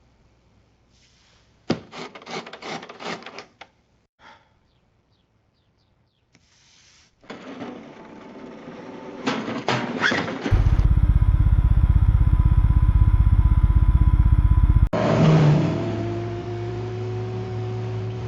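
Cartoon sound effects of a toy car being pushed: a few seconds of small plastic clicks and clatters. After a pause, a rumble builds into a loud, even pulsing engine drone that cuts off suddenly, followed by a car engine running with a slowly rising pitch.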